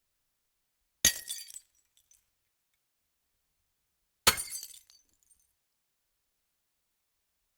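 AI-generated glass-breaking sound effect made with Stable Audio Open 1.0. It has two separate smashes about three seconds apart, each a sharp crash followed by a short spill of tinkling shards.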